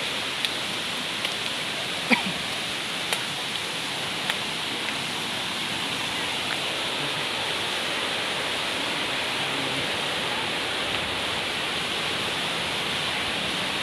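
Steady rush of a waterfall's falling water, with a few short sharp clicks in the first few seconds, the loudest about two seconds in.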